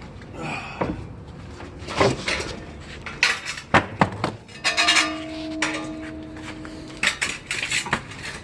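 Household items clattering as they are handled and set down: a run of knocks and clinks, with a steady pitched ringing or squeal lasting a couple of seconds in the middle.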